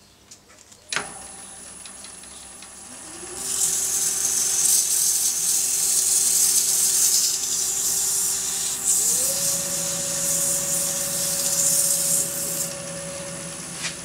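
Axminster AT1628VS variable-speed woodturning lathe starting up about a second in, its motor whine rising in pitch twice as the speed is turned up. Abrasive paper held against the spinning spalted beech box gives a loud, steady hiss from about three seconds in until near the end, sanding it to 400 grit.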